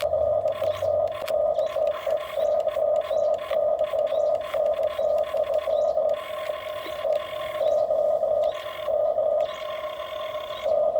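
Whining electric motors and gearboxes of Huina radio-controlled model construction machines, starting and stopping in quick short bursts at a steady pitch.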